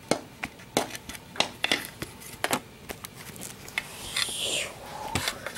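Hooves of a plastic model horse tapping on a hard floor as it is walked along by hand, about three taps a second. A brief rustling hiss comes about four seconds in, followed by a few more taps.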